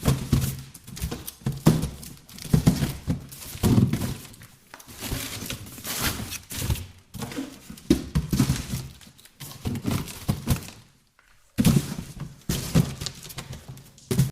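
Boxes being handled and rummaged through: irregular thuds and knocks mixed with scraping and rustling, with a short lull about eleven seconds in.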